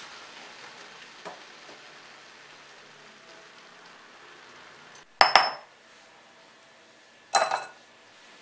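Two sharp metallic clanks of kitchenware, each ringing briefly, about five seconds in and again two seconds later. Before them the simmering tamarind and jaggery mixture sizzles faintly.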